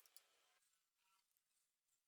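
Near silence: a faint hiss with a small tick near the start.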